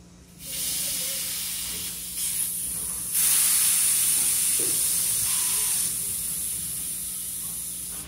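Pressurised gas hissing out of a plastic bottle of fermenting homemade bread starter as its screw cap is slowly loosened. The hiss starts about half a second in, gets louder a little after two and three seconds, and eases somewhat toward the end. The pressure is built up by the starter's fermentation.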